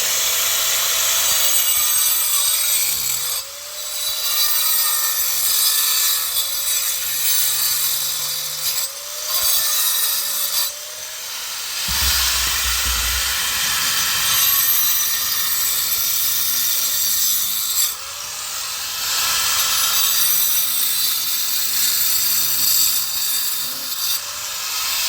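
A power tool cutting, a steady grating noise with a motor whine that dips and rises as the load changes, pausing briefly a few times.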